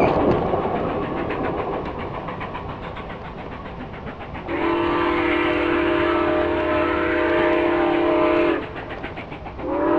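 The rumble and clickety-clack of a passing train fade away. Then Nickel Plate Road 765's steam whistle, heard from down the line, sounds one long multi-note chord of about four seconds, breaks off, and starts a second long blast just before the end.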